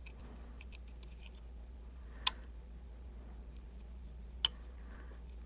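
Lock pick working the pins inside an Emhart Black Belt lock: a few faint ticks in the first second and a half, then two sharp clicks about two seconds apart as pins are lifted and set.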